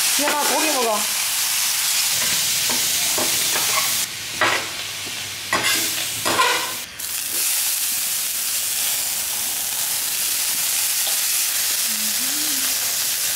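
Beef slices sizzling on a stainless-steel tabletop griddle, a steady high hiss, with a metal spatula scraping and tapping the plate. The sizzle thins for about three seconds in the middle, then comes back.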